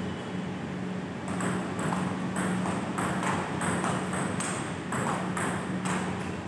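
Table tennis rally: the celluloid-type ball clicks off the bats and the STAG table about three times a second, starting about a second in. A steady low hum runs underneath.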